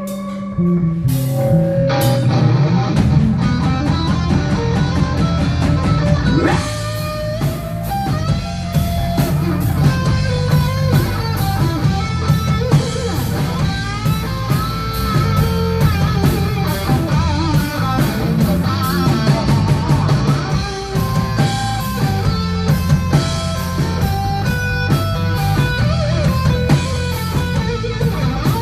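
Rock band playing an instrumental passage with no vocals: electric guitar over a drum kit and bass, the lead line bending in pitch. The full band comes in about two seconds in after a sparser opening.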